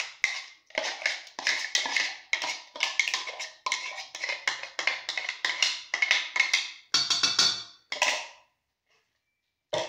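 A spatula scraping and knocking, about three strokes a second, against the inside of a pot as mashed beetroot is emptied out into a bowl. The strokes stop shortly before the end, and one more knock follows.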